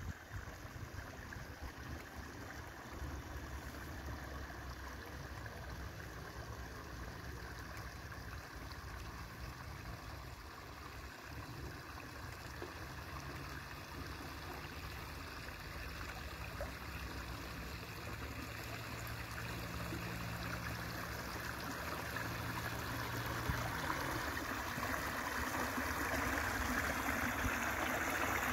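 Small stream water trickling and splashing over a low step into a river, a steady wash that grows louder toward the end. A low steady hum runs beneath it and stops a few seconds before the end.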